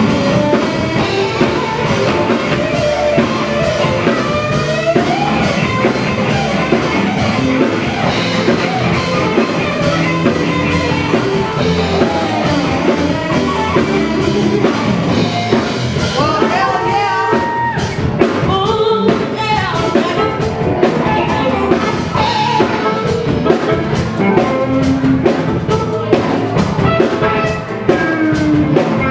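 Live rock band jamming: drum kit and electric guitar, with a voice singing.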